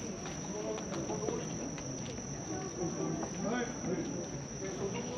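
A steady high-pitched insect trill, like a cricket chorus, with voices murmuring beneath it.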